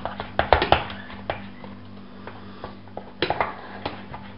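Wooden spoon working thick choux paste in a stainless steel pot, knocking and scraping against the pot's side in irregular clusters of clicks, over a steady low hum. The paste is being stirred over the heat to dry it out.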